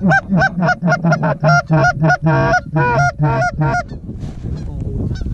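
A hunter's goose call blown close by, a fast even run of honks and clucks at about three a second that stops about four seconds in.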